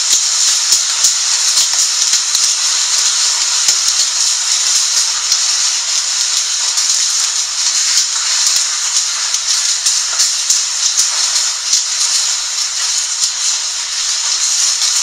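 Hail and heavy rain pelting down: a steady, loud hiss with a dense scatter of sharp clicks from hailstones striking.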